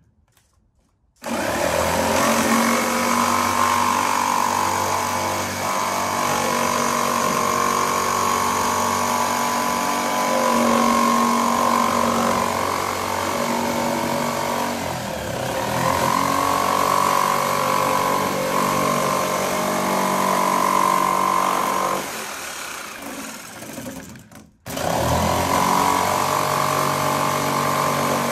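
Corded jigsaw with a fairly fine-tooth blade cutting 8 mm multiwall polycarbonate sheet along its flutes, the motor running steadily under load. It starts about a second in, eases off around 22 s, stops briefly, and starts cutting again.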